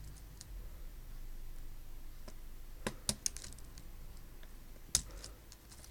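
Small screwdriver tip clicking against the metal backplate and a plastic key clip of a Dell D600 laptop keyboard while prying the clip out: a few separate sharp clicks, a cluster around the middle and one more near the end.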